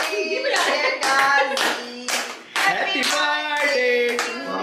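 Hands clapping along in a steady beat, about two to three claps a second, with voices singing over them.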